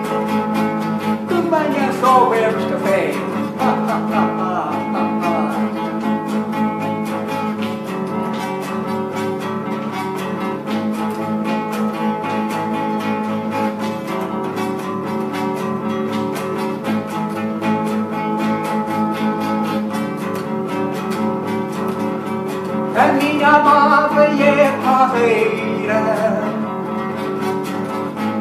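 Acoustic guitar strummed in a steady rhythm, with an elderly man singing over it at the start and again toward the end.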